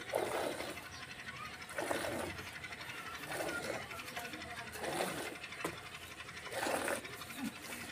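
Jets of milk squirting into a steel bucket as a cow is milked by hand: five short spurts, about one every one and a half seconds.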